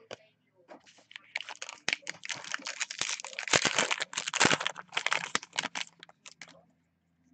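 Foil trading-card pack wrapper being torn open and crinkled by hand: a dense crackling that starts about a second in, is loudest in the middle and stops after about six and a half seconds.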